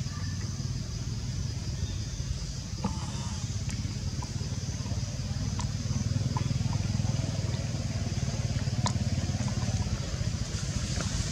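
A steady low rumble of a motor vehicle's engine running, growing a little louder about halfway through, under a steady high-pitched hiss and a few faint clicks.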